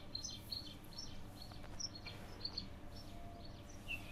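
Faint chirping of small birds in the background: many short, high chirps a few times a second, over a low steady hum.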